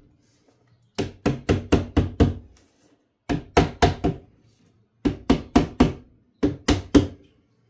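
Rubber mallet tapping a rusted-out-replacement steel window sash channel down onto the rubber-wrapped bottom edge of a Chevy C10 door glass, seating it. The taps come in four quick runs of about four to seven knocks each, roughly five a second, with short pauses between, and each knock rings briefly.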